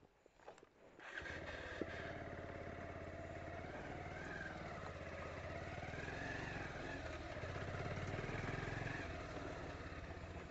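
Motorcycle engine running at low speed as the bike is ridden slowly, starting about a second in. Its pitch rises and falls a little with the throttle.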